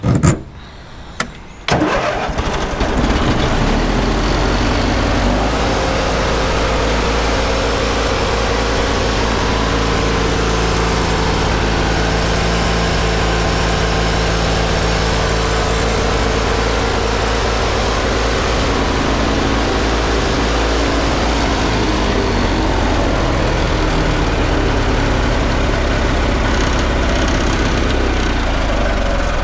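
Briggs & Stratton opposed-twin engine on a Craftsman GTV18 riding mower cranking briefly and catching about two seconds in, then running steadily.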